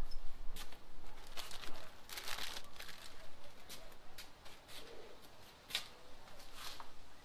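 Plastic cheese packages crinkling and rustling as they are handled and picked up off a griddle top, with irregular light clicks and knocks.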